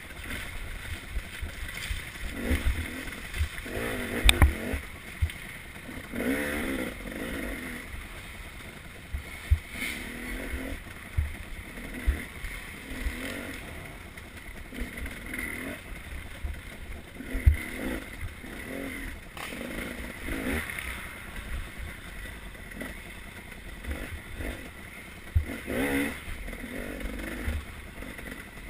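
Off-road dirt bike engine revving up and down again and again as the throttle is worked along a rough trail, with frequent sharp knocks from bumps.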